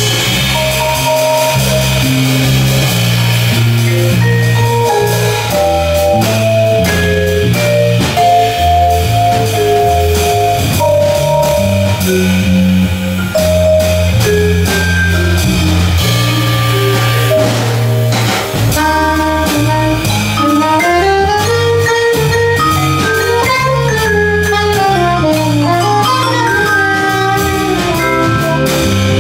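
Jazz waltz: a Yamaha vibraphone solo, mallets striking separate ringing notes that climb and fall in quick runs in the second half, over electric bass and a drum kit.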